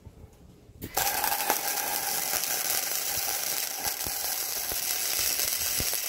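MIG welder arc crackling steadily while welding steel, with spatter ticks throughout; it strikes up about a second in and runs without a break.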